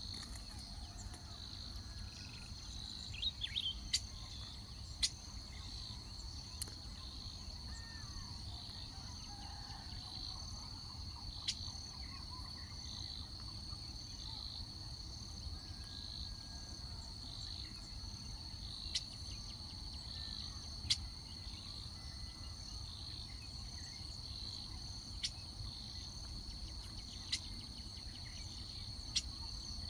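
Insects trilling steadily in one high, continuous tone, with a low rumble underneath. Sharp clicks come every few seconds, and there are a few faint bird chirps.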